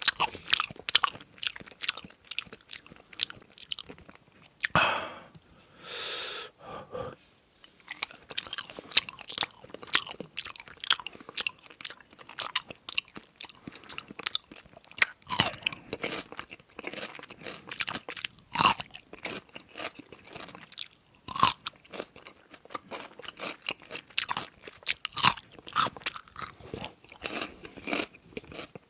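A person chewing and biting food, with a dense run of short crunchy, wet mouth clicks and two brief hissy sounds about five and six seconds in.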